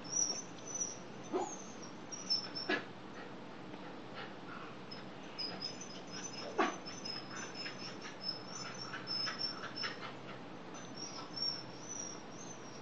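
Beagle whimpering and yipping in a few short cries, the loudest about six and a half seconds in, with thin high chirps going on behind.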